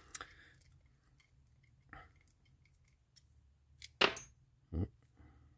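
Light clicks and clinks of small metal parts and a screwdriver as screws are fitted into a Penn Senator reel's side plate, with a sharper clack about four seconds in followed by a duller knock.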